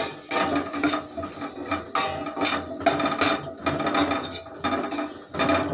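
A spoon stirring and scraping potato cubes coated in roasted chili powder around a stainless steel pot, in irregular scraping strokes.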